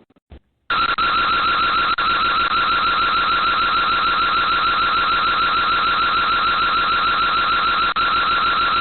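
Electronic alarm siren, set off as an intruder alarm, starting just under a second in and sounding loud and steady with a rapid warble.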